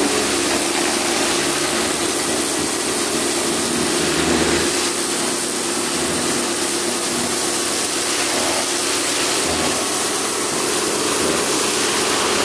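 Karcher K2 electric pressure washer running, its pump motor humming steadily under the loud hiss of the dirt blaster lance's water jet blasting caked grass off the underside of a mower deck.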